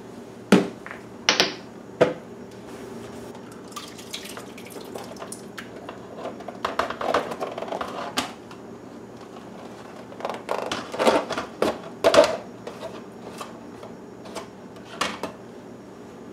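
Scattered knocks, clinks and scrapes of a stainless steel mixing bowl, an aluminium pan and the plastic food processor bowl as salsa is scraped and tipped from one to the other.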